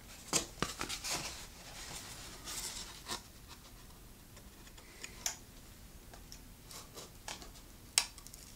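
Handling noise from a foam model airplane's parts being fitted together by hand, as the rudder is trial-fitted to the fuselage: scattered light clicks and taps with soft rubbing of foam, and a sharper click near the end.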